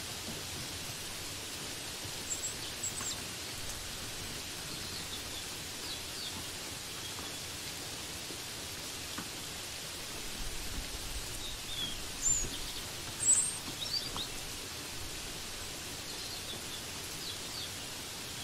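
Steady hiss of rainfall, with a few bursts of short, high bird chirps scattered through it, the loudest about two-thirds of the way in.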